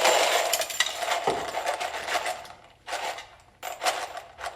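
Adhesive label being rubbed and peeled on a plastic organizer case: a long scratchy rasp, then several short scrapes and clicks.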